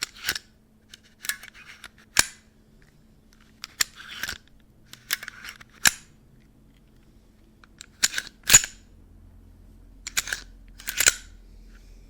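Plastic parts of a 3D-printed PLA Glock 43x replica clicking and clacking as it is handled, taken apart and put together: about a dozen sharp clicks at uneven intervals, some followed by a short rattle.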